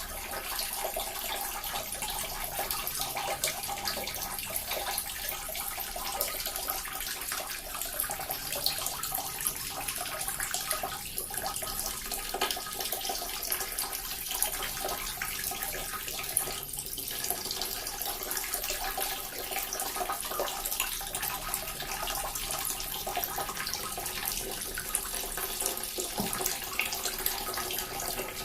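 Small water fountain running continuously: a steady trickle and splash of falling water.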